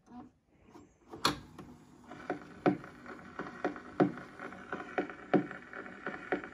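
Slot-loading portable 45 rpm record player taking in a single: a sharp clunk about a second in, then the motor running with a regular knock about every two-thirds of a second as the mechanism turns.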